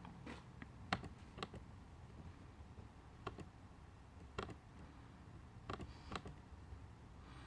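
Computer keys tapped now and then: faint, irregularly spaced clicks, about a dozen in all.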